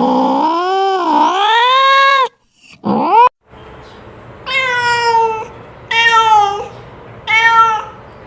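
Domestic cat calling: a long, wavering yowl that cuts off abruptly about two seconds in, a short rising cry, then three shorter meows about a second apart.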